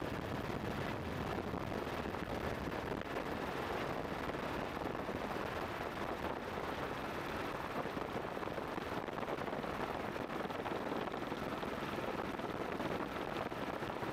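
Steady, even roar of a helicopter in flight, with a faint steady whine on top and no change in level.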